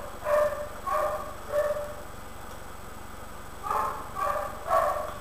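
A dog barking: three short barks, a pause of about two seconds, then three more.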